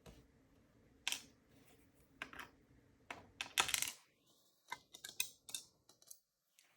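Scattered light clicks and taps of small metal lock parts being handled as a pin-tumbler padlock is taken apart, with a quick cluster of clicks about halfway through.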